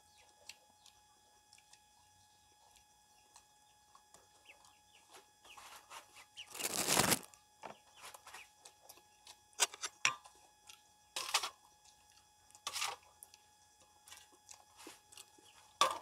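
Quiet handling sounds of a meal eaten by hand: scattered light clicks and rustles, with a louder burst of noise, under a second long, about seven seconds in and a few shorter ones later.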